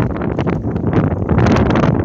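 Strong, gusting snowstorm wind buffeting the microphone: a loud, low rumbling rush that surges again about a second and a half in.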